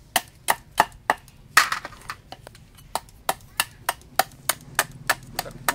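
Cleaver chopping the tips off snail shells on a wooden chopping board: sharp knocks about three a second, with one heavier strike about one and a half seconds in.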